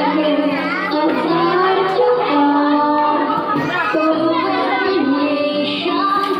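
A young girl singing into a microphone over a recorded music backing track, her voice holding and sliding between notes.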